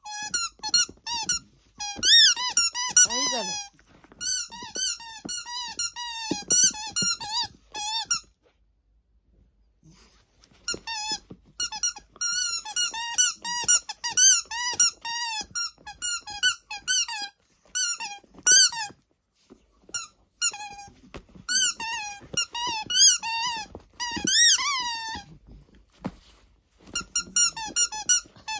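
A dog's squeaky toy being chewed, squeaking rapidly in bursts of many quick squeaks, each one bending in pitch, with a pause of about two seconds roughly a third of the way through and shorter lulls later.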